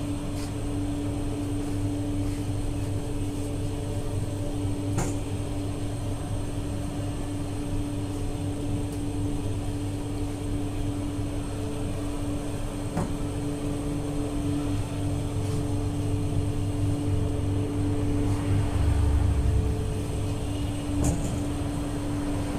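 Steady mechanical hum of bakery machinery, likely the large bread oven's burner and conveyor, with a low drone and a steady mid-pitched tone. A few faint clicks, and a brief low bump near the end.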